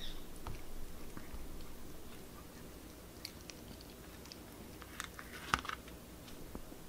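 Chihuahua eating from a stainless steel bowl: quiet chewing with scattered small crunches and clicks, a louder cluster of them about five seconds in.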